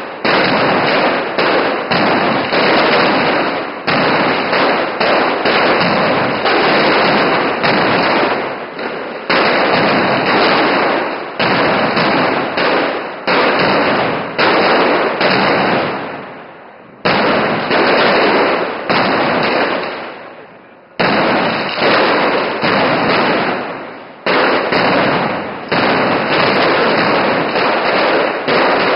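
Mascletà firecrackers going off in a dense, rapid chain of loud bangs that run together without a break. Twice past the middle the bangs thin out and fade for a moment, then restart suddenly at full loudness.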